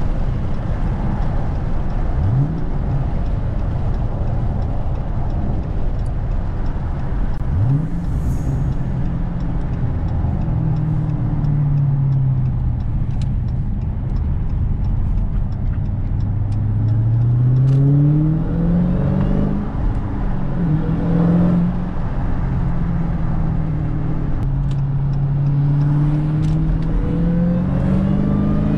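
Dodge Challenger SRT Hellcat's supercharged 6.2-litre HEMI V8 heard from inside the cabin under way, still on its stock intake. The engine note holds fairly even, then climbs twice under throttle in the second half, dropping back between the pulls.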